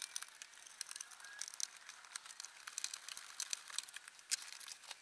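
Faint, irregular small clicks and scratches of a multimeter's probe tips being worked against the pins and connectors of a circuit board.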